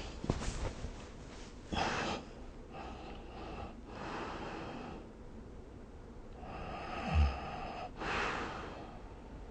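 A sleeping person snoring: several separate noisy breaths in and out. The loudest is a short low snort about seven seconds in.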